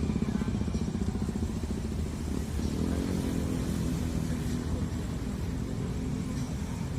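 An engine running steadily with a low, pulsing rumble.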